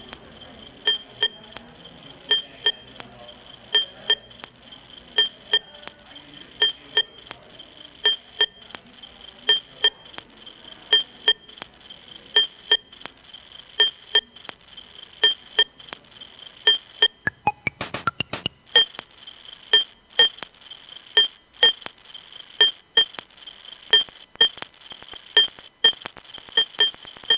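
Glitchy electronic music from a modular synthesizer playing sliced-up samples of circuit-bent audio gadgets: short, sharp high-pitched blips in an uneven, repeating rhythm, roughly one or two a second. About two-thirds of the way through there is a brief burst of dense crackling noise.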